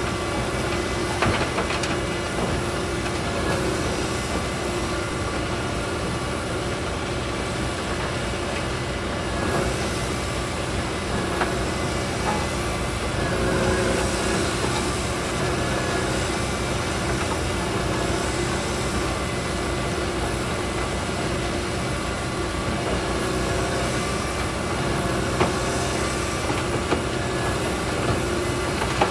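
Tracked mobile crusher running steadily while crushing concrete rubble: a continuous diesel-driven mechanical din with a few sharp clanks of concrete chunks. Near the end an excavator tips a bucket of rubble into its hopper.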